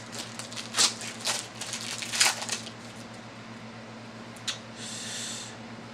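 A trading-card pack being torn open by hand: a few short crinkling rips of the wrapper in the first couple of seconds, then a click and a brief rustle of cards near the end, over a steady low hum.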